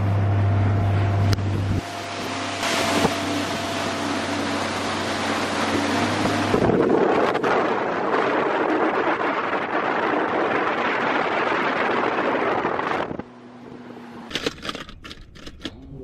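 Bass boat running at speed: the outboard motor's steady drone under loud wind and water rush. About thirteen seconds in, this gives way to a quieter stretch with a few sharp clicks and knocks.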